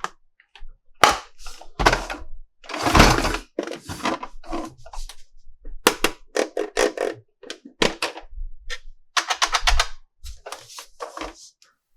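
Plastic toy parts and packaging being handled: irregular clicks and knocks, a short rustle about three seconds in, and a quick run of ticks just after nine seconds.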